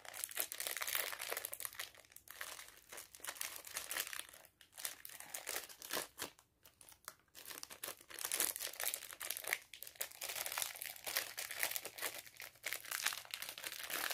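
Clear plastic jewelry packaging crinkling and crackling as fingers pick and pull at it to get the earrings out, in irregular runs with a short pause about six seconds in. The package is being stubborn to open.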